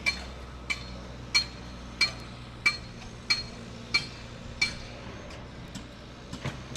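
Metal being hammered on a construction site: a sharp, ringing clank about every two-thirds of a second, eight strikes in all, stopping about four and a half seconds in. A low, steady machine hum runs underneath.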